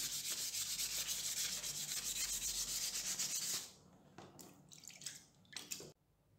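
Copper candlestick bowl being wet-sanded by hand on 1500-grit sandpaper: fast, steady back-and-forth scraping strokes. The strokes stop a little over halfway through, leaving a few light scrapes and knocks as the piece is handled, and then the sound cuts off.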